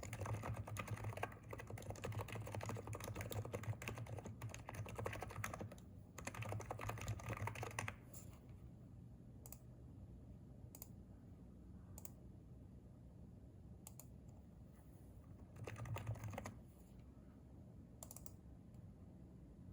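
Typing on a Hansung keyboard with electrostatic capacitive switches: fast, continuous keystrokes for about eight seconds, then only a few single clicks a second or two apart, with one short flurry of typing near the end.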